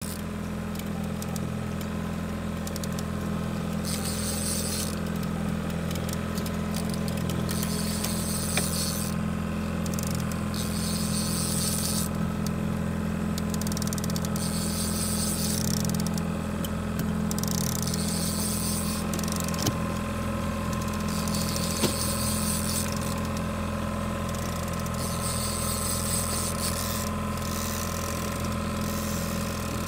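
Boat outboard motor idling with a steady low drone, while a hiss comes and goes every couple of seconds over it.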